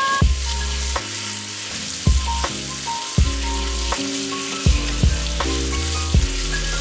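Tap water running in a steady stream, splashing over Brussels sprouts being rinsed in a metal mesh colander. Background music with a steady beat plays throughout.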